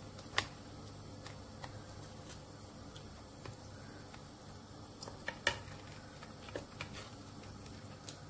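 Breadcrumb-coated potato balls deep-frying in hot vegetable oil: a steady, fairly quiet sizzle with scattered sharp pops and crackles, the loudest about half a second in and again about five and a half seconds in.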